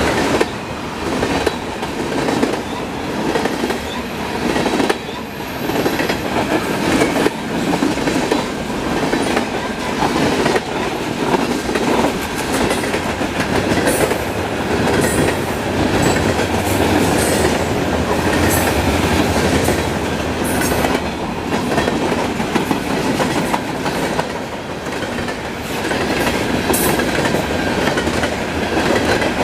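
Freight cars rolling past at speed: steel wheels clicking on the rails over a steady rumble and rattle of the passing cars.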